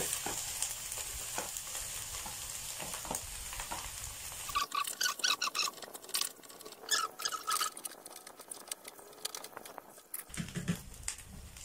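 Spatula stirring and scraping fried rice in a pan, with a light sizzle. A run of quick clicking scrapes comes about halfway through.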